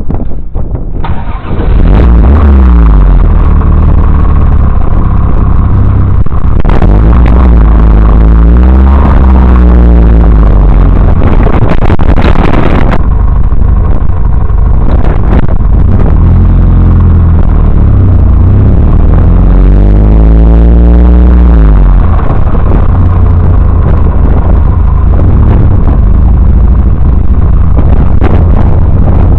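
Triumph TR3A's four-cylinder engine pulling hard on the road, its pitch climbing and then dropping several times as it revs up through the gears. The recording is overloaded and distorted, the engine too loud for the dash cam's microphone.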